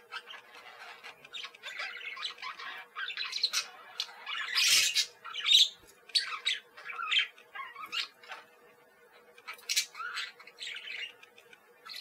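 Parakeets chattering and squawking in short, irregular calls, loudest about halfway through, over a faint steady hum.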